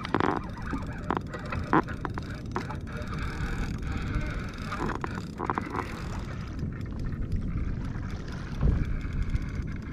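Wind buffeting the microphone and water moving around a kayak on the open ocean, with scattered short knocks and clicks from gear on the boat.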